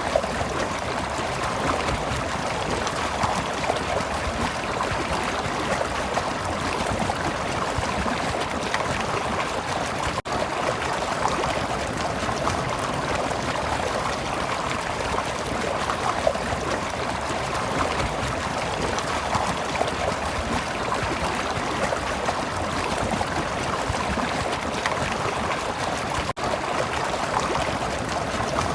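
Stream water flowing and trickling over rocks in a steady, unbroken rush, cutting out for an instant twice.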